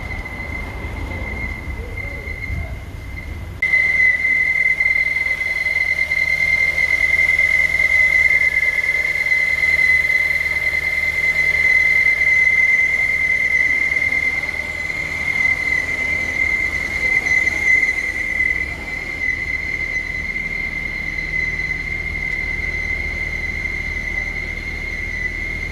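Engine running with a steady high-pitched whine over a low rumble, abruptly louder about three and a half seconds in: the engine noise being shown as a fault.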